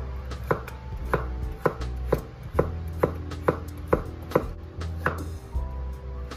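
Chef's knife slicing carrots into rounds on a wooden cutting board: a steady series of sharp knocks as the blade meets the board, about two a second, over quiet background music.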